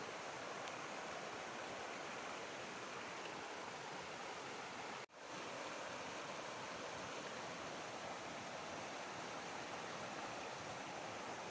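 Steady rush of running water, an even hiss with no distinct events, dropping out abruptly for a split second about five seconds in.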